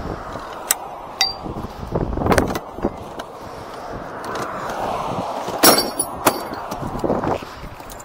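Metal hand tools clinking and knocking as they are packed into a plastic toolbox: a handful of separate clanks, the loudest about two-thirds of the way through, over the steady rush of passing highway traffic.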